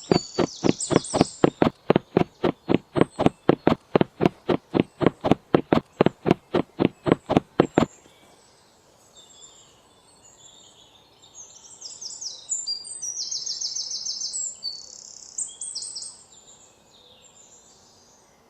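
A rapid, evenly spaced run of sharp knocks, about four a second, stops about eight seconds in. Small birds chirping and twittering follow, loudest past the middle.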